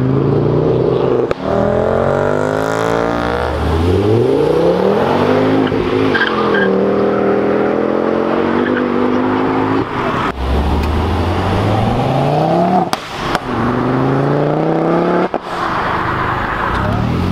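Performance hatchback engines accelerating hard, one car after another, the revs climbing repeatedly as each pulls away. The sound cuts abruptly between cars several times.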